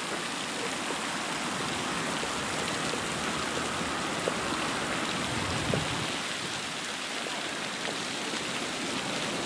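Steady splashing hiss of water from a pond fountain.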